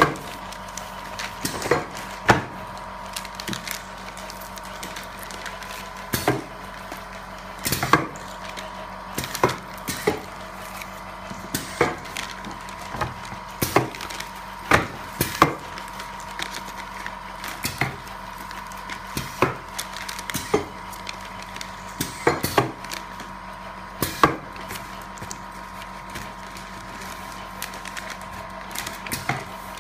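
Semi-automatic coffee valve applicator machine running with a steady hum, broken by irregular sharp clacks and knocks, about one or two a second, as degassing valves are pressed onto coffee bags.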